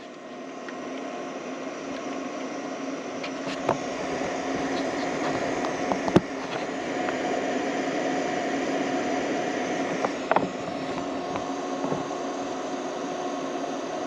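The small USB-powered fan of a mini evaporative air cooler running on max, a steady whirring hum that builds over the first few seconds and then holds. A few light clicks are heard along the way.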